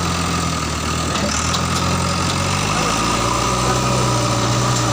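Diesel engine of a JCB 3DX backhoe loader running steadily, its note stepping up a little past halfway through as the revs rise.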